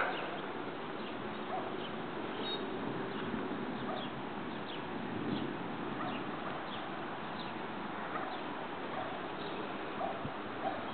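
A bird chirps repeatedly, short high downward-sliding chirps about once a second, over a steady outdoor background hiss.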